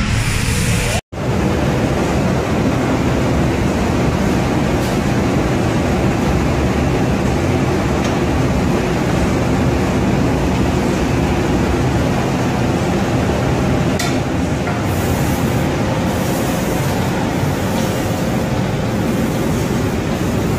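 Automatic cabinet-door painting line with its roller conveyor running: a loud, steady mechanical rumble and hiss. The sound drops out for an instant about a second in.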